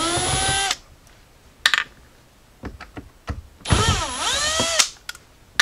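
Cordless drill/driver backing out two Phillips screws from a center console: two short whirring runs of the motor, about a second each, the second dipping in pitch under load and then rising as the screw frees. A brief clatter comes between them.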